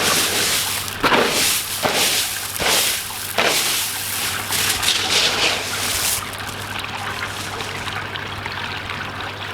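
Hands digging and raking through wet grow media in an aquaponic bed, with irregular scraping and crunching strokes, over water trickling in the bed and a steady low hum.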